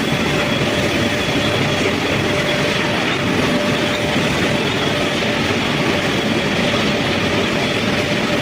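Steady, loud industrial machinery noise of a steel melting shop, an even rumble with a faint high steady whine over it.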